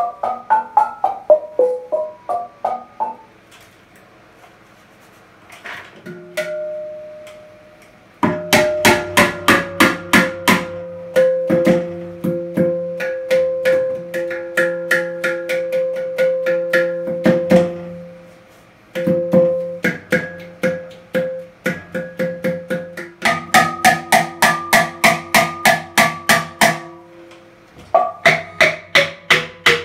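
Steel handpan shell being tuned: a note field struck in rapid runs of several strikes a second, each strike ringing with the note's pitch and its overtones. Runs of strikes are broken by a quieter stretch of a few seconds near the start and short pauses later.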